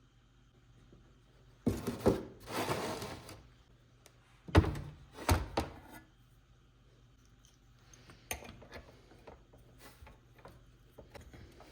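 Objects being handled and knocked about: a short rushing scrape, then two heavy thunks less than a second apart, followed by light scattered clicks and taps.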